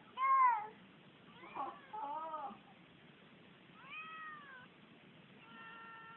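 Domestic cat meowing several times, each meow rising and falling in pitch, the loudest right at the start, with others about two and four seconds in and a flatter, steadier one near the end.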